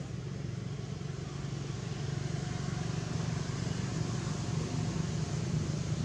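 Steady low drone of a running motor vehicle engine, slowly growing louder.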